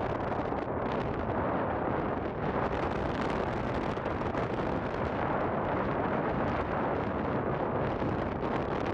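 Steady wind rushing over the microphone aboard a coaster ship under way, with the ship's water noise beneath it.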